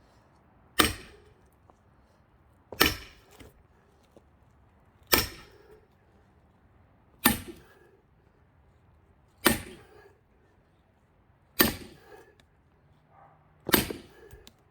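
Seven heavy hammer blows, one about every two seconds, each a sharp crack with a short ring, driving an axe wedged into a thick pine log to split it.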